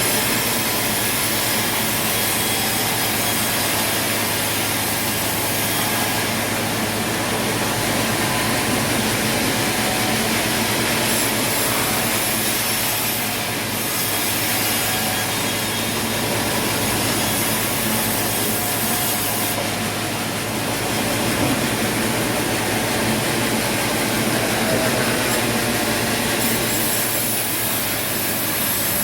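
Sawmill running and sawing through wood: a loud, steady machine noise with the saw cutting.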